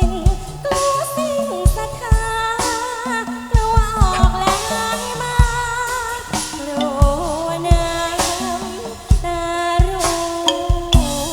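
Thai likay stage music: a singer's melody over band accompaniment with regular drum beats.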